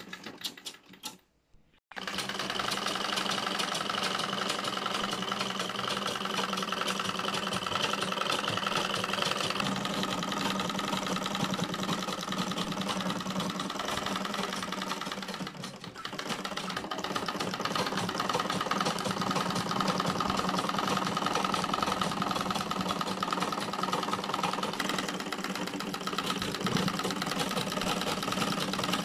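Vintage foot-treadle sewing machine running at a steady pace as the needle stitches through fabric. It starts up about two seconds in and stops briefly about halfway through before running on.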